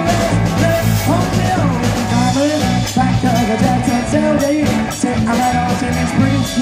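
Live rock band playing at full volume through a PA: electric guitar, bass guitar and drum kit, with a steady beat under a melody line that bends in pitch.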